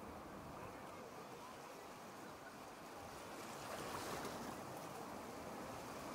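Surf washing on the beach with wind on the microphone: a steady rush of noise that grows a little louder about halfway through.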